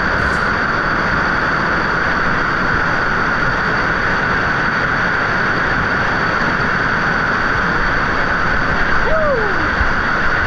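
Steady rushing of a waterfall's falling water, loud and unbroken, with a short falling call about nine seconds in.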